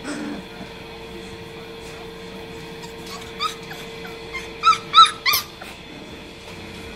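24-day-old Cane Corso puppies giving four short, high-pitched yips in quick succession in the second half, the loudest about five seconds in.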